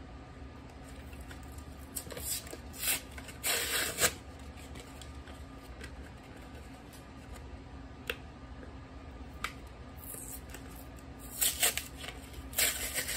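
Plastic blister pack and cardboard backing being worked and torn open by hand: bursts of crinkling and tearing with quieter gaps between, and a couple of sharp clicks in the middle.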